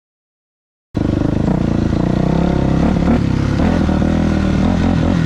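Dead silence for about the first second, then a 2000 Yamaha YZ426F dirt bike's four-stroke single-cylinder engine running under way, its pitch shifting a little up and down.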